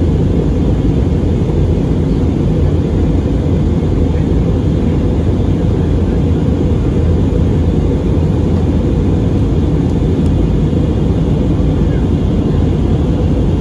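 Steady low roar inside the cabin of an Airbus A320neo climbing after takeoff. It is engine and airflow noise, heard from a window seat over the wing.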